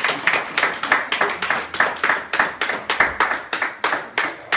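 People clapping: quick, sharp claps several a second, fading near the end.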